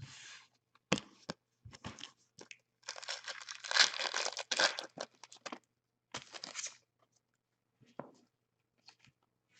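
Foil trading-card pack being torn open and its wrapper crinkled, in several rustling bursts, the longest and loudest from about three to five and a half seconds in. A few light taps near the end.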